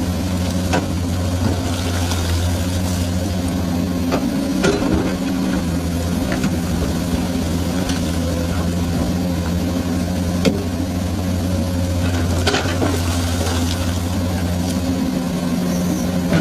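Komatsu excavator's diesel engine running steadily under work, a constant low hum, with a few short sharp knocks scattered through it.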